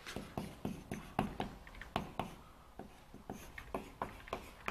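Chalk writing on a blackboard: an irregular run of short taps and scratches, a few a second.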